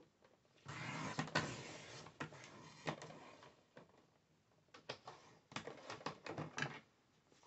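Card stock being handled and trimmed: a scraping, rustling stretch of about three seconds starting a little under a second in, then a run of light clicks and taps.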